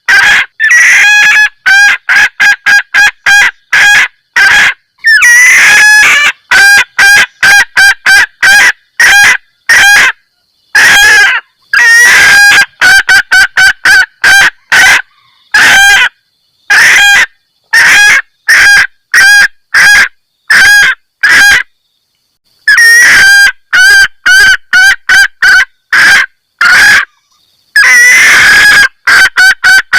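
Junglefowl hen giving her repeated 'kekkek' mating call, the call used as a lure to draw in males. It is loud: quick short clucking notes, about two to three a second, broken by a few longer drawn-out calls and short pauses.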